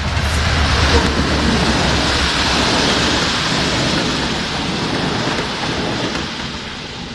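A train passing close by: a loud rushing rumble that builds over the first second, holds, then starts to fade about six seconds in.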